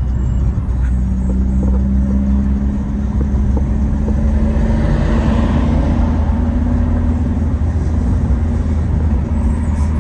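Car engine and road noise heard from inside a moving taxi cab: a steady low drone whose pitch climbs a little partway through as the car speeds up, with a swell of rushing noise about halfway through.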